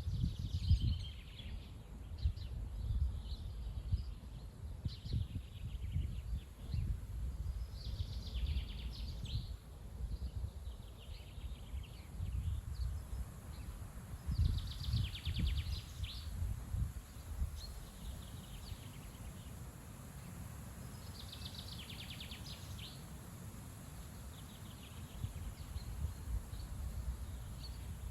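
Gusty wind buffeting the microphone, a low rumble that swells and eases. A small songbird sings short trilled phrases every few seconds over it.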